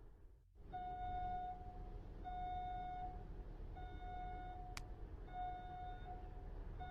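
Electronic reversing-alarm beeper sounding five times, each beep just under a second long and about a second and a half apart, over a low steady hum, with one sharp click about two-thirds of the way through.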